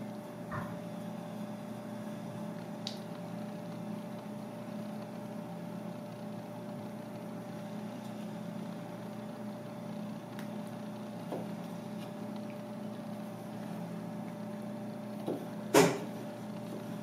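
Steady low machine hum under faint ticks as a Misono chef's knife slices squid mantle on a plastic cutting board. One sharp knock of the blade on the board comes near the end and is the loudest sound.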